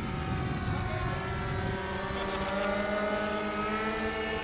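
Radio-controlled model airplane in flight, its motor a steady drone whose pitch slides and shifts about halfway through as the plane passes. Wind rumbles on the microphone in the first half.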